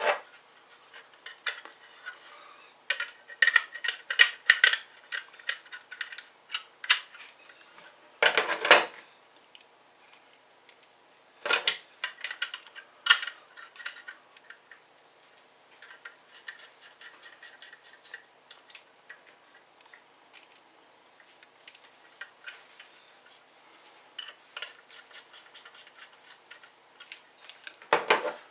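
Small clicks, taps and light clinks of hand tools, screws and plastic parts as an ASUS F541 laptop is taken apart. There are several louder knocks, about nine seconds in, around twelve and thirteen seconds, and near the end.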